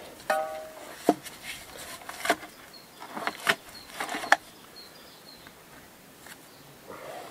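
Hand tools scraping and chipping old dirt and mortar out of the joints of a rough stone wall: a series of irregular sharp scrapes and knocks, bunched in the first half and quieter after.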